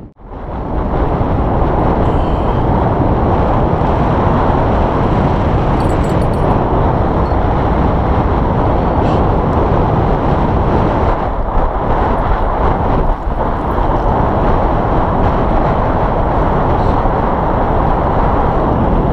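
Strong wind buffeting the camera's microphone: a loud, steady low rush with no let-up, after a brief gap at the very start.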